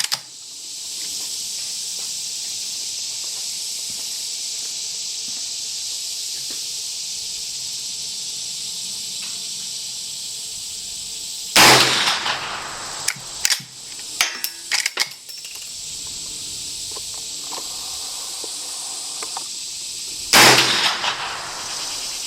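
Two rifle shots from a Browning Model 92 lever-action in .44 Magnum, about nine seconds apart, each with a short echo, with a few smaller clicks between them. A steady high insect drone runs underneath.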